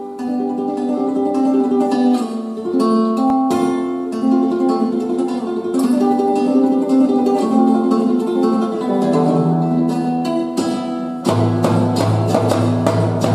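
Instrumental music: a melody of ringing, plucked-sounding notes, each fading after it is struck. About eleven seconds in, a deep sustained bass note enters and the texture thickens.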